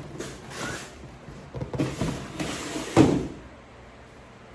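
Packaging and parts being handled: rustling and scraping, then a single loud thump about three seconds in.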